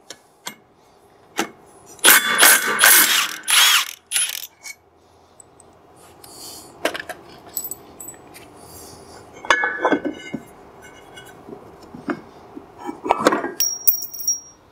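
Milwaukee cordless impact wrench hammering for about two seconds as it loosens the snowmobile secondary clutch's retaining bolt. Scattered metallic clicks and clatter follow as the clutch parts are handled.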